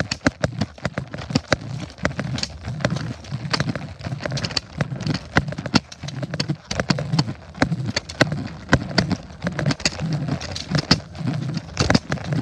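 Footfalls and knocking handling noise from a handheld camera carried along a sidewalk at a brisk pace: dull thumps about twice a second under many sharp, irregular clicks.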